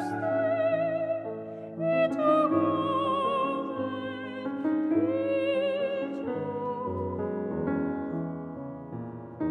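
A woman's classical, operatic voice singing slow held notes with wide vibrato, accompanied by a grand piano. Near the end the voice drops out and the piano carries on alone.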